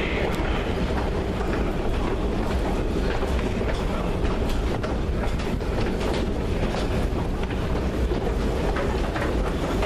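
London Underground escalator running: a steady rumble with scattered clicks and clatter from the moving steps.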